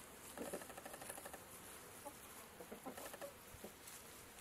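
Domestic hens clucking faintly while foraging: two short runs of quick clucks, one about half a second in and another around three seconds in.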